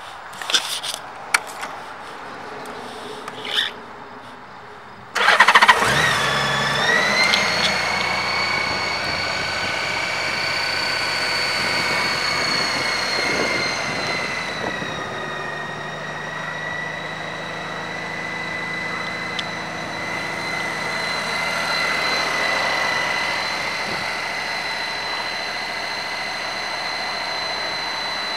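A few clicks, then about five seconds in a 2008 Honda Gold Wing trike's flat-six engine is started: it catches with a sudden loud burst and settles into a steady idle. A high whine runs over the idle.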